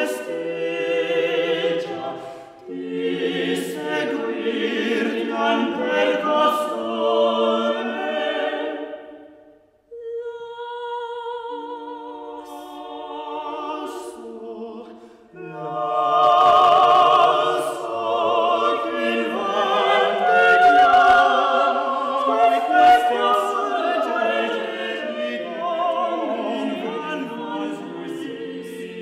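Unaccompanied vocal quartet of two women and two men singing a Renaissance Italian madrigal, the voices interweaving in polyphony. About ten seconds in the sound drops away briefly and fewer, higher lines carry on quietly, then all four voices come back fuller and louder.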